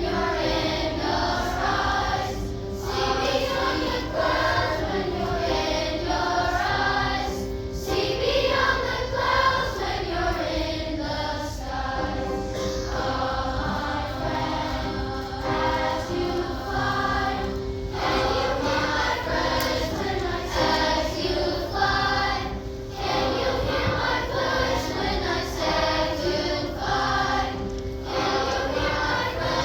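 A choir singing a slow song in harmony, with long held notes.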